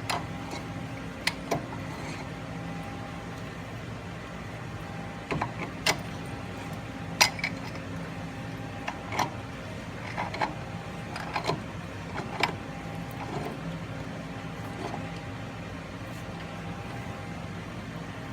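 Scattered light metal clicks and knocks from hand tools reassembling a truck's ball joint, a dozen or so at uneven intervals, the loudest about seven seconds in, over a steady mechanical hum.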